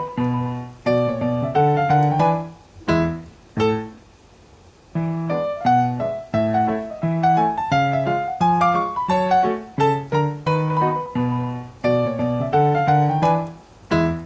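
Background piano music: a melody over chords, each note struck and then fading, with a short lull about four seconds in.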